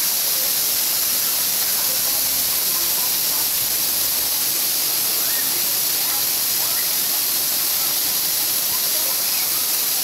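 Waterfall pouring in a steady rush and hiss, the falling sheet of water splashing onto the rocks, heard from close behind the curtain. Faint distant voices sit underneath.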